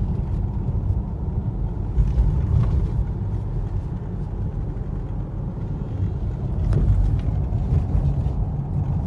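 Mercedes ML 250 on the move, heard inside the cabin: a steady low road rumble with a few sharp knocks from the front suspension, about two seconds in and again near seven seconds. The mechanic traces the noise to worn shock absorbers and torn suspension-arm bushes.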